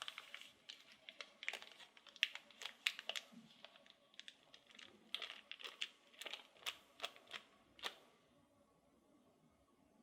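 Plastic wrapper of a Bounty chocolate bar crinkling as it is handled and unwrapped: a run of sharp, irregular crackles that stops about eight seconds in.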